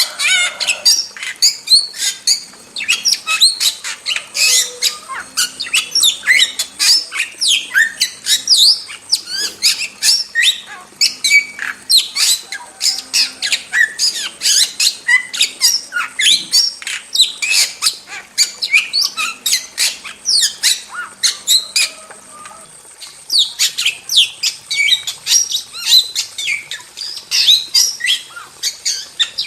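Starling song: a fast, unbroken stream of sharp chirps, whistles and harsh squawks, with a short lull about three-quarters of the way through before the chatter resumes.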